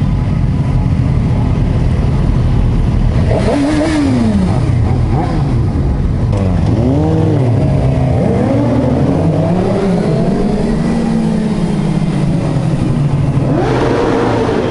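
A group of sport motorcycles accelerating together, several engine notes rising and falling in overlapping sweeps as they rev up and shift, over a steady low engine rumble. A loud rising surge of revving comes near the end.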